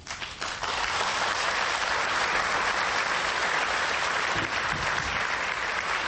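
A large audience applauding. The clapping swells up within the first second and then holds steady.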